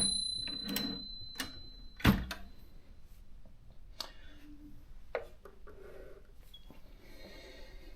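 Consul 1502 typewriter's margin bell rung once, a single high ring that fades over about three seconds; this bell is not as loud as the 1504's. Several sharp mechanical clicks and knocks from the machine follow, the loudest about two seconds in.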